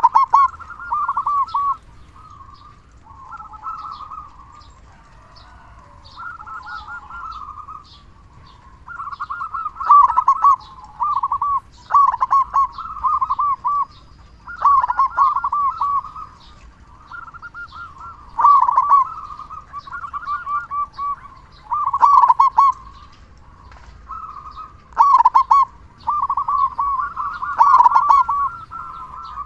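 Zebra dove (perkutut) cooing in repeated rolling phrases of quick coos, each a second or two long with short gaps between, some phrases louder than others.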